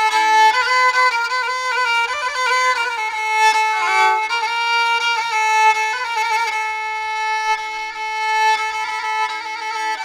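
Background music: a violin playing a slow melody of long held notes with vibrato.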